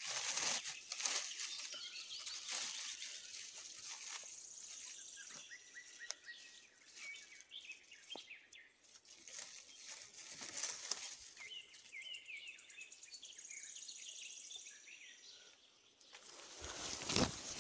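Rustling of clothing and dry forest undergrowth close to the microphone as someone moves and bends through the brush, loudest at the start and just before the end. Small birds chirp in the background, and a high thin trill sounds twice.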